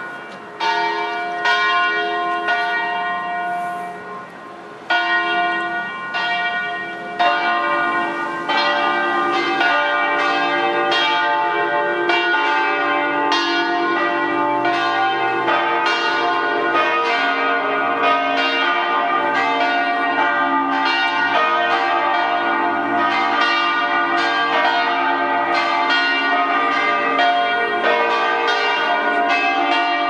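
Four church tower bells start ringing one after another: a single bell first, a second joining about five seconds in and more over the next few seconds, then all four ringing together in a steady, overlapping peal.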